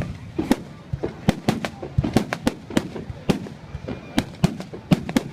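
Fireworks going off in quick, irregular succession: many sharp bangs, several a second, over a low rumble.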